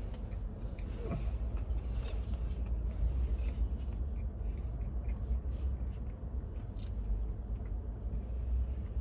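A person chewing food, with small scattered clicks and crinkles from handling it, over a steady low rumble.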